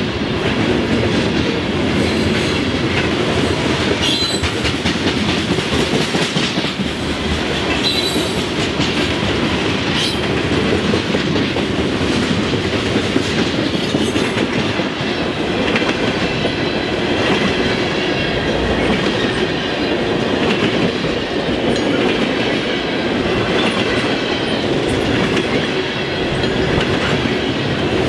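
Freight train of covered hopper and tank cars rolling steadily past: a continuous rumble and clatter of steel wheels on the rails.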